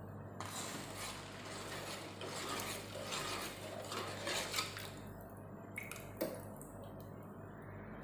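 Metal spoon stirring sugar into water in a metal pot, scraping and clinking against the bottom and sides as the sugar syrup is mixed, then a couple of sharp clinks about six seconds in.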